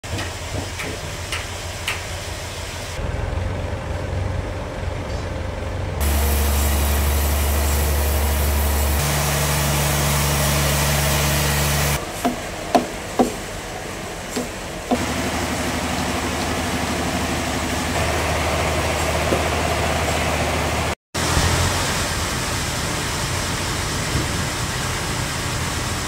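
Sawmill-yard machinery that changes abruptly every few seconds: a Toyota forklift's engine running, with a steady low machine hum in stretches. Around the middle come a few sharp knocks from a chisel stripping bark off a sawn slab.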